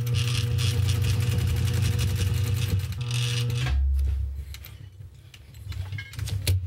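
Juki DDL-555-4 industrial straight-stitch sewing machine running at a steady speed, its motor hum under a rapid needle clatter as it stitches through nylon webbing. It stops after about three and a half seconds, and quieter handling of the strap follows.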